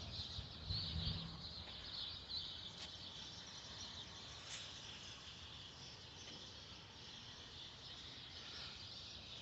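Quiet outdoor ambience: faint, steady high-pitched chirping of insects and birds.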